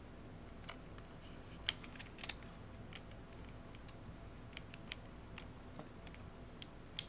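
Irregular small clicks and taps of fingers handling the film leader and the open back of a Pentax K1000 35mm camera while threading film onto its take-up spool. About a dozen scattered clicks, the sharpest about two seconds in and near the end.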